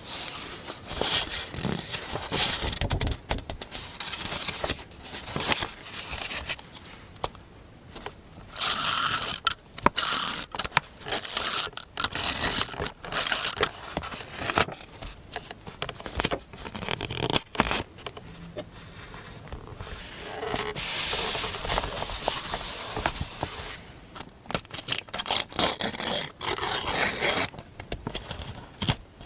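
Paper being handled close up for a scrapbook collage: irregular scraping, rustling and crinkling strokes, some long and some short, with brief pauses between them.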